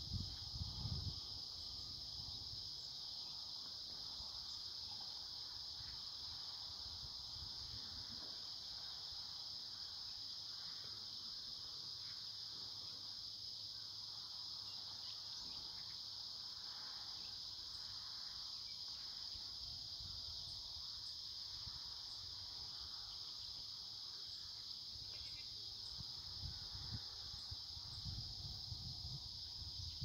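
A steady, unbroken high-pitched insect chorus, with low rumbling near the start and in the last few seconds.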